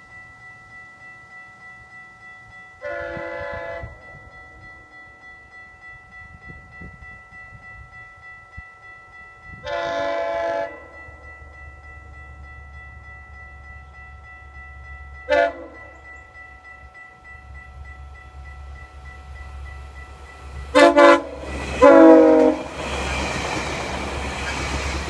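GO Transit commuter train approaching and sounding its horn five times: two long blasts about seven seconds apart, a short blast, then two short blasts close together. A low rumble builds under the horn, and the rushing noise of the bi-level coaches going by takes over near the end.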